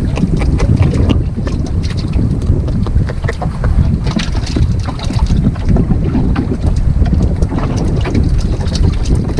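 Wind buffeting the microphone in a steady, loud low rumble, with scattered light clicks and knocks.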